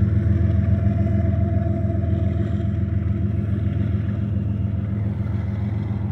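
Steady low drone of departing diesel locomotives, the train's rear GE ES44C4 and ET44C4 distributed-power units, slowly fading into the distance.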